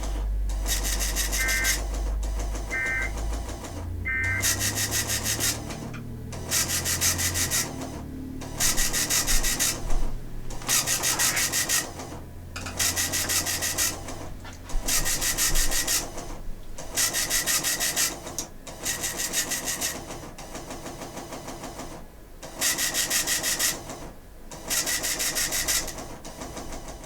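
Weather-radio receiver static: hiss that surges and drops about every two seconds as a weak broadcast fades in and out. A few short faint tones come through in the first few seconds.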